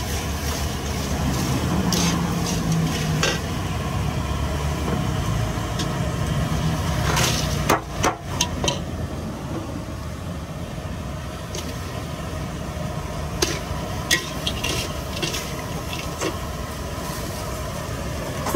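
Scattered sharp clinks and clatters of utensils and dishes over a steady low rumble, with a cluster of knocks about halfway through.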